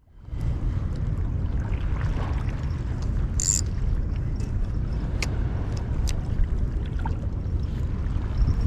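Wind rumbling steadily on the microphone over the sea. A few faint, short clicks fall through it, the brightest a brief high tick about three and a half seconds in.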